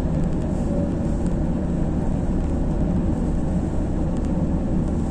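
Steady low engine and road rumble inside the cabin of a moving manual-transmission car.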